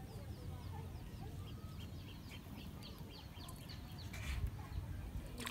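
A bird calling in a fast run of short, high, falling chirps over a steady low rumble, with two brief rustles or knocks near the end.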